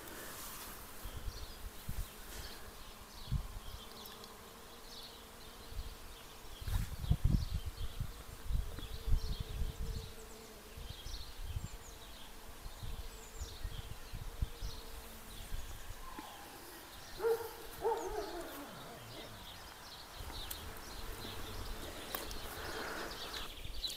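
Bees buzzing around a shrub: a steady hum that comes and goes as they fly past the microphone, with one passing close and sweeping in pitch about 17 seconds in. Small birds chirp throughout.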